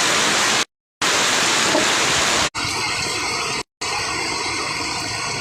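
Heavy rain pouring steadily, broken by a short gap of silence just under a second in. About two and a half seconds in it cuts abruptly to a quieter, steady background noise with faint humming tones.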